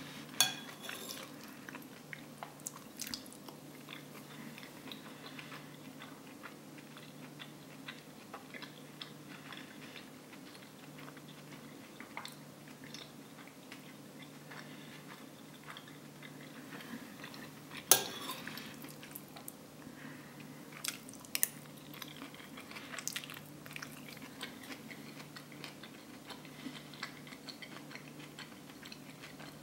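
Close-up eating sounds: soft chewing of rice and vegetable curry with small wet mouth noises, broken by a metal spoon clinking against the plate, sharply about half a second in and again, loudest, about eighteen seconds in, with a few lighter clinks a few seconds later.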